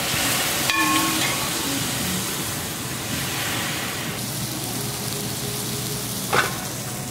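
Hot stainless pan of arborio rice sizzling steadily as vegetable stock is ladled in, the liquid hitting the hot pan in the risotto's next stage of cooking.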